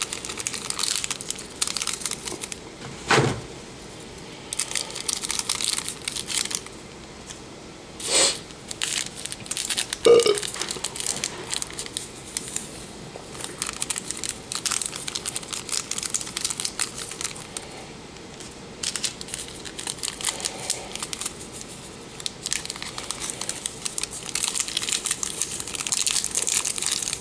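Dry, still-hard broken ramen noodles crackling and crunching as they are tipped into a plastic bowl and stirred with a fork, in stretches of dense crinkly crackle with a few louder knocks about 3, 8 and 10 seconds in.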